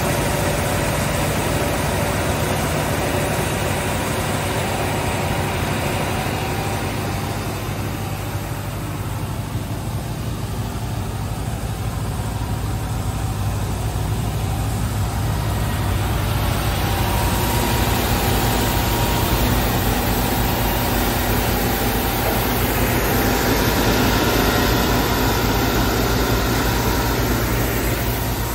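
Stemac LCRT 900 wide-belt sander running with a steady low motor hum while sanding boards; the hiss of the belts on the wood dies down about a third of the way in and swells again a little past halfway.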